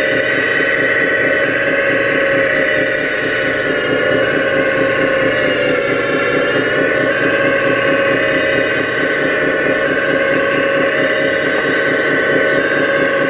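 Radio-controlled scale Hitachi Zaxis 330 excavator running as it works its boom and bucket: a steady mechanical whine over an even, rhythmic chugging, the pitch dipping briefly about halfway through.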